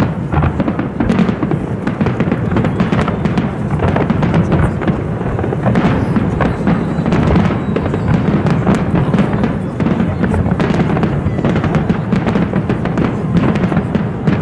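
Fireworks display: many aerial shells bursting in rapid succession, a dense barrage of bangs with no pauses.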